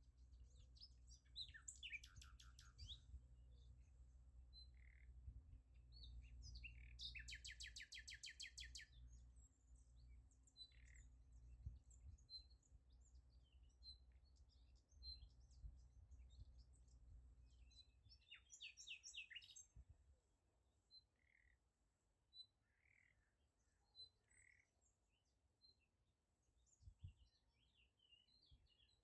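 Faint small birds chirping, with three bursts of fast trills. A low rumble underneath fades out about two-thirds of the way through.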